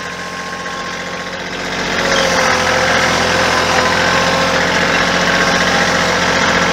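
Kioti compact tractor's diesel engine running as the tractor drives off, growing louder about two seconds in as the throttle comes up, then holding steady.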